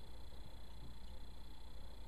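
Steady background room tone: a low hum and an even hiss with a faint high-pitched whine, and no distinct event.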